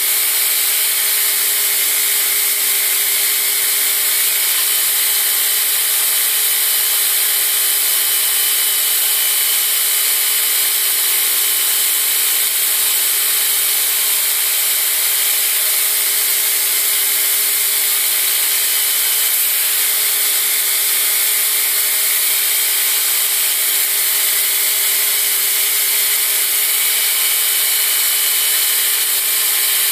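Belt grinder running steadily, its abrasive belt grinding the bevel on a steel push dagger clamped in a bevel jig.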